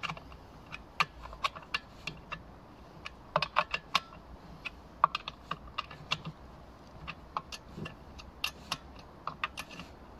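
Irregular sharp clicks and taps of a combination chainsaw wrench working the guide-bar nuts on a chainsaw's side cover, tightening them to lock the bar once the chain is tensioned.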